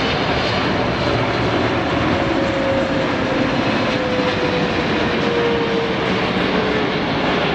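Boeing 777-300ER's GE90 turbofan engines as the airliner flies in to land: a loud, steady jet roar with a whining tone that slowly falls in pitch as the aircraft passes.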